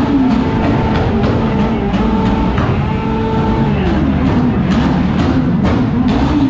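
Music with a drum beat and a held, stepping melody.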